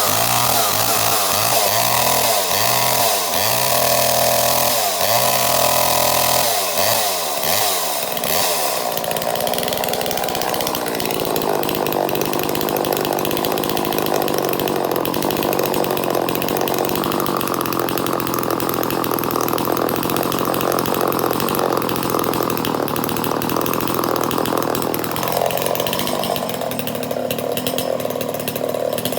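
Two-stroke chainsaw engine revved up and down over and over for about nine seconds, then held running steadily at high speed, its pitch shifting a couple of times.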